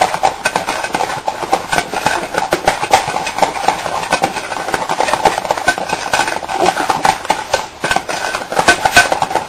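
Egg yolks and sugar being beaten by hand in a glass bowl: a metal utensil clicking and scraping rapidly and steadily against the glass, whipping the mixture until it turns foamy.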